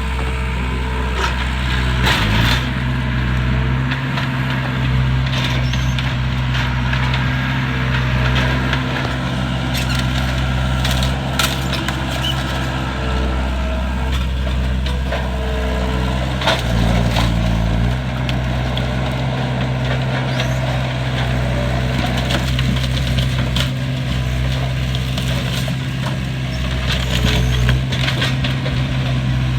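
A heavy machine's engine running steadily under load while a wooden structure is pushed over, with repeated cracks, crunches and splintering of breaking timbers.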